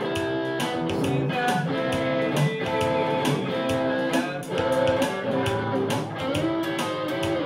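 Electric guitar playing a gospel shuffle, sustained chords over a steady, evenly repeated beat.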